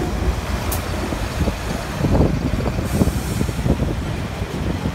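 Garbage truck engine running at the kerb in a steady low rumble, with a few knocks and a short hiss about three seconds in.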